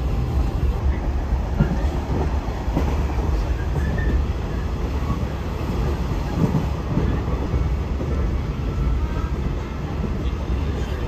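Steady low rumble and light clatter of a train running, heard from inside the carriage of the Rokumon, a converted Shinano Railway 115-series electric train.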